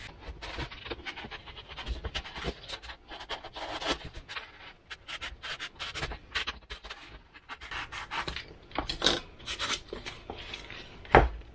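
Hobby knife cutting through an EPP foam glider fuselage: many short, irregular scraping strokes, mixed with the rubbing of hands handling the foam.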